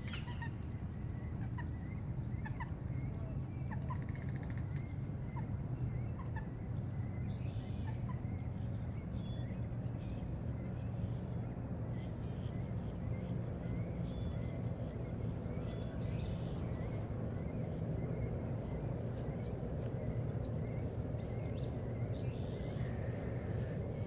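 Birds calling at a wading-bird nesting site: scattered short chirps, and three brief, higher, harsher calls spaced several seconds apart, over a steady low rumble.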